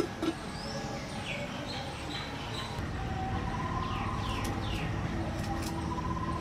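Birds calling: several short chirps that slide down in pitch, and a few longer thin whistles, over a steady low background hum.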